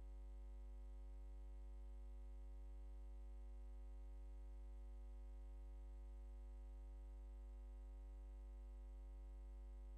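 Faint, steady electrical hum with a buzz of fixed overtones above it, unchanging, with no other sound.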